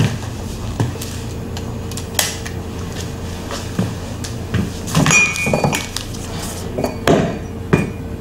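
A glass coffee pot and crockery handled on a table: scattered knocks and clinks, with a ringing clink about five seconds in, over a steady low hum.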